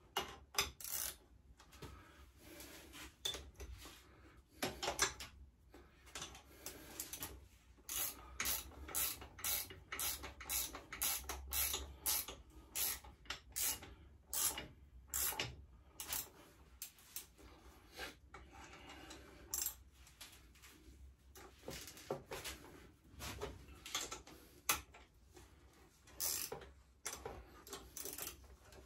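Ratchet spanner clicking in short, repeated runs as a bolt on a pit bike is turned, with a few knocks of metal tools.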